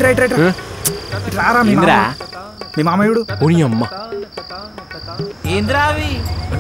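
Crickets chirping steadily, a high pulse repeating about twice a second, under background music with a wavering, pitched melody.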